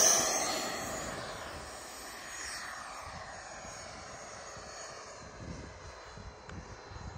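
Whine of a Freewing electric ducted-fan RC jet flying away: it fades fast over the first two seconds and falls in pitch. After that it settles to the faint steady hiss of the distant ducted fans.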